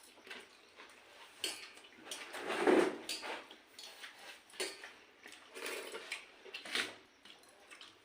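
Pakhala bhata, rice soaked in water, being eaten from a dish: irregular wet eating sounds and light clinks of the dish, loudest a little under three seconds in.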